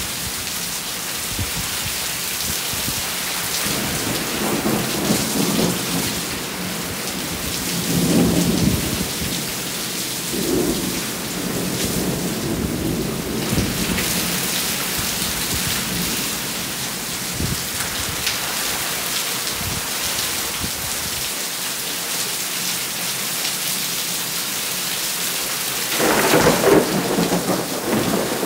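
Steady rain falling during a thunderstorm. Thunder rumbles from about four to nine seconds in and again briefly around ten seconds, and a louder thunderclap comes near the end.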